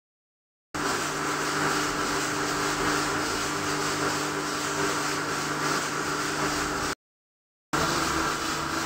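Steady machine hum with a constant hiss, like a fan or motor running. It starts abruptly after a moment of dead silence, cuts out about seven seconds in, and comes back under a second later.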